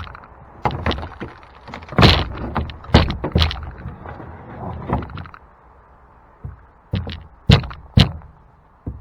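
Irregular knocks, thunks and scraping of a boat's plywood deck being worked loose and handled, in uneven clusters with a quieter stretch in the middle.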